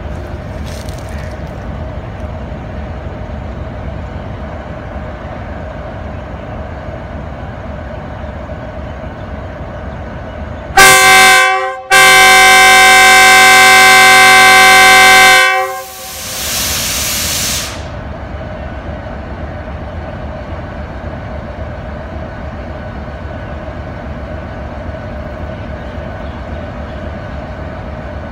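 A GE U20C diesel-electric locomotive's engine runs steadily. Partway through, its horn sounds very loudly: a short blast, then a long blast of about three and a half seconds. A hiss of about two seconds follows it.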